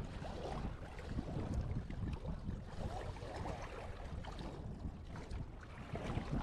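Wind noise on the microphone over small waves washing at the shore.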